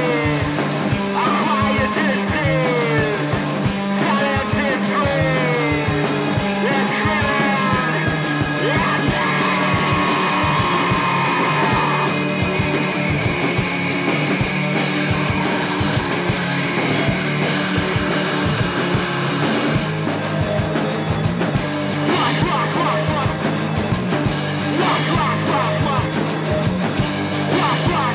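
Rock music with singing.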